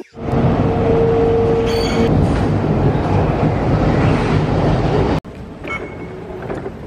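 Singapore MRT train running, heard from inside the carriage: a loud, even rumble with a steady tone over it for the first two seconds. About five seconds in it cuts off suddenly to a quieter sound.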